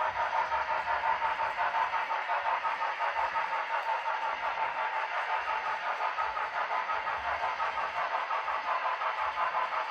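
HO scale model locomotive running on the layout, its onboard sound decoder playing locomotive sound through a small speaker, together with wheel noise on the track. The sound is steady, with a fast, even pulsing and almost no bass.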